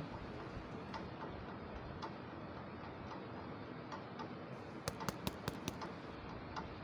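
A clock ticking faintly about once a second, with a quick run of five or six sharper clicks about five seconds in.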